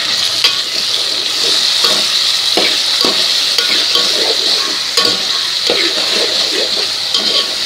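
Chopped tomatoes and onions sizzling in hot oil in a metal pot, with a steady hiss, while a metal spoon stirs them, scraping and clicking irregularly against the pot.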